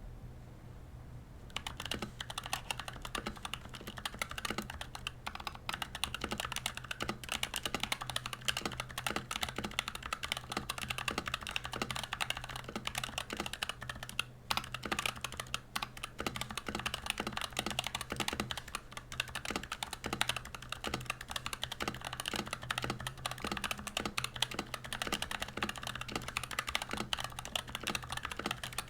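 Fast, continuous typing on an NK65 custom mechanical keyboard with lubed, filmed Gazzew Boba U4T 68g tactile switches and NP-profile keycaps, giving a deep, muted thock on each keystroke. The typing starts about a second and a half in and pauses briefly around the middle.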